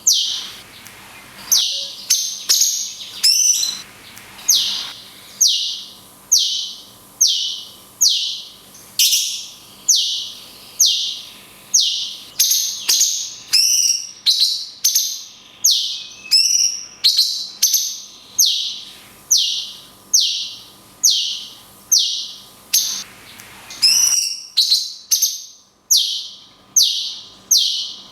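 Cucak cungkok repeating its long 'kunti' shot song: a loud, high note sweeping downward, given over and over a little more than once a second.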